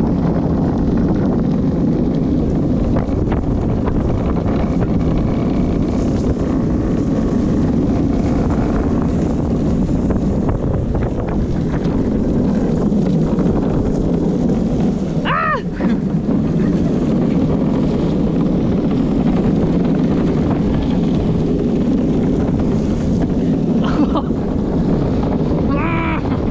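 Luge cart rolling fast down a wet concrete track, a steady rumble of its wheels on the concrete mixed with wind rushing over a helmet-mounted camera. A person gives a short shout about halfway through and again near the end.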